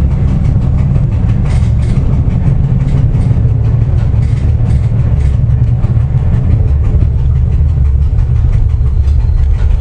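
Cab noise of an SNCB AM 78 electric multiple unit under way: a loud, steady low rumble from the running gear, with scattered light clicks from the rails.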